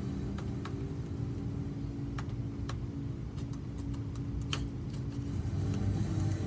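Scattered computer keyboard and mouse clicks, a dozen or so irregular taps, over a steady low hum.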